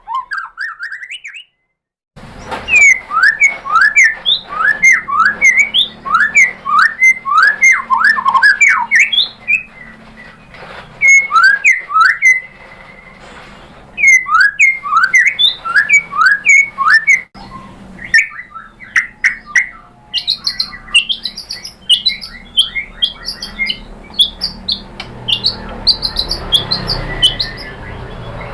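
White-rumped shama (murai batu) singing: rapid runs of sharp, sweeping whistled notes. It starts after a short silence, and partway through there is a brief break and a change to higher, quicker notes.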